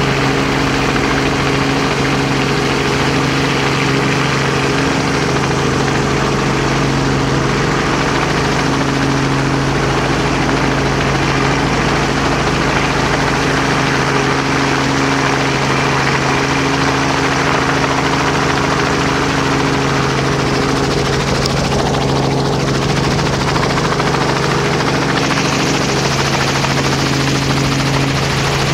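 A loud, steady engine drone with a rushing hiss of wind and water over it; a brighter hiss comes in near the end.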